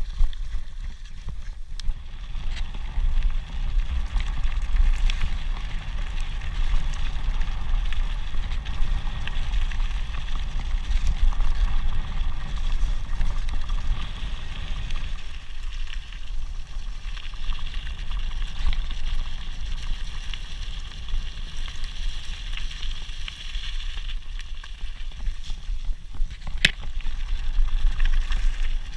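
Mountain bike tyres rolling and crunching downhill over a rough grass and gravel track, with a steady rumble from wind on the microphone. A single sharp knock from the bike comes near the end.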